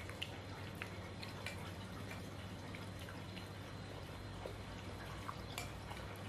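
Scattered light clicks of a metal spoon and fork against ceramic plates while eating, over a steady low hum.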